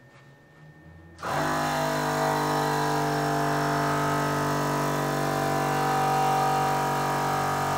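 Tuff Stuff Overland 12-volt portable air compressor switching on about a second in and then running with a steady, even hum, pumping air into a tire aired down to 15 psi.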